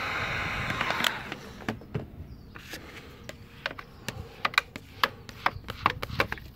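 Heat gun blowing steadily, shut off about a second in. After it, a scattered series of sharp clicks and taps as a hard tinting tool is worked over the shrunk window film on the glass.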